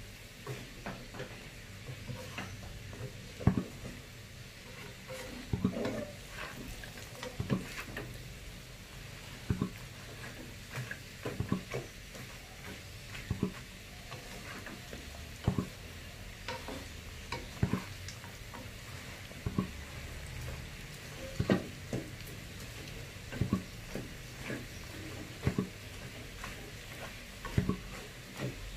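Spiced Spanish mackerel skin frying in a pan with a steady sizzle, while it is stirred. A utensil knocks and scrapes against the pan about every one to two seconds.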